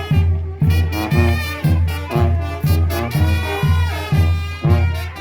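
Mexican brass banda playing live: trumpets and trombones carry the melody over a deep bass note about twice a second.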